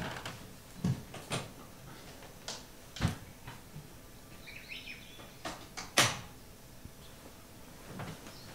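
Scattered soft thumps and rustles of bedding and people moving about a quiet bedroom as someone gets out of bed and the other sleeper rolls over under the duvet, with a sharper knock about six seconds in.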